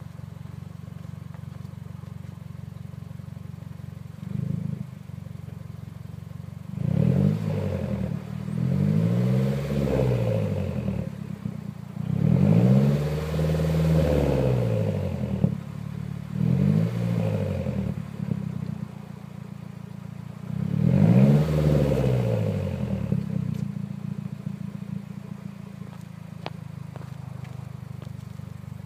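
Mazdaspeed 3's turbocharged 2.3-litre four-cylinder, with both resonators deleted, idling and then revved about six times. Each rev rises and falls back to idle, and it settles into a steady idle near the end. This is the engine after about 15 minutes of idling, the state in which it blows heavy smoke from the exhaust.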